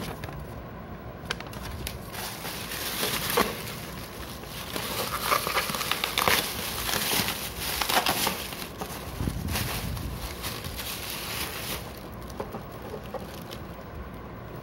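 Plastic packaging crinkling and rustling as a clear plastic bag and a courier poly mailer are handled, with sharp crackles, busiest and loudest in the middle and dying away near the end.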